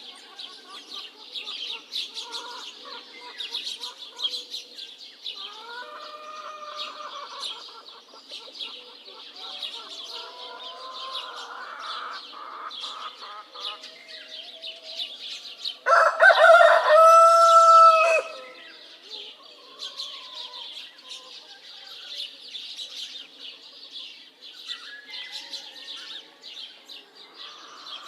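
A rooster crows once, loudly, for about two seconds a little past the middle, over continuous high chirping from many small birds. Softer chicken calls come earlier.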